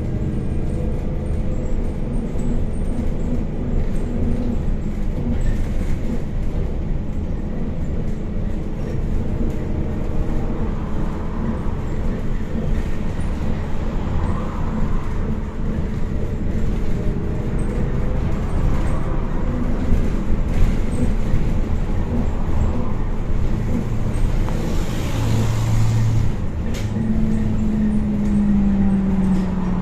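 Cabin noise of a MAZ-103T trolleybus under way: steady road rumble with the hum of its electric drive. There is a brief hiss of air a few seconds before the end, and near the end the drive's whine falls in pitch as the trolleybus slows.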